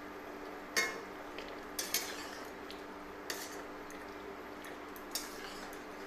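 Metal spatula knocking and scraping against a steel kadhai while stirring a watery curry, with five sharp clinks spread through the stirring.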